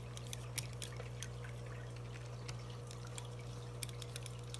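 Hex driver working screws on an RC truck's chassis: scattered light clicks and ticks over a steady low hum.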